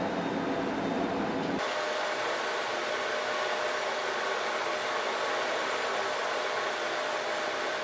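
Steady whirring, rushing mechanical noise with a faint hum in it; its low rumble drops away abruptly about one and a half seconds in.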